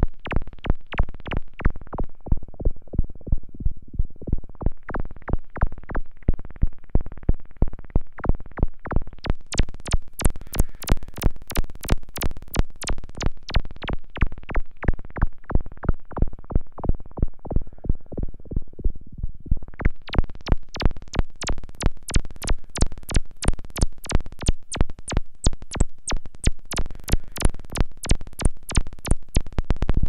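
Erica Synths SYNTRX analog synthesizer's filter being pinged by a steady trigger, giving a train of short plucked tones about three a second, its frequency modulated by an oscillator. As the filter knob is turned, the plucks go dull and mellow a few seconds in, turn bright and sharp from about nine seconds, soften again, and turn bright once more from about twenty seconds.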